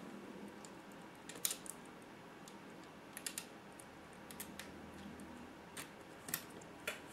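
Light, scattered clicks of small parts being handled: a shoulder bolt fitted through a shock absorber's mount on a model truck's metal chassis.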